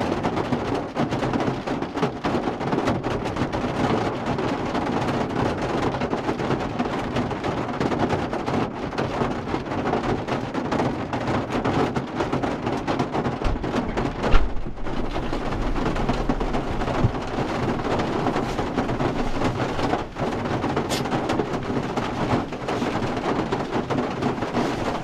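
Heavy rain falling steadily in a dense patter of drops. Halfway through there is a sudden low thump with a short rumble.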